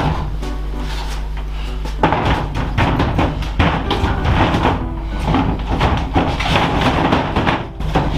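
Background music with held tones, with frequent short knocks and clunks over it.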